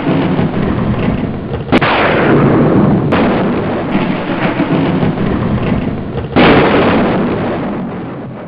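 Thunder-like sound effect: a heavy rumble broken by two sudden loud cracks, one about two seconds in and one past six seconds, each trailing off, with the whole fading away near the end.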